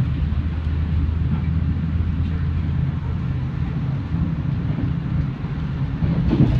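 Electric passenger train running along the tracks, heard from inside the car: a steady low rumble with a steady hum under it.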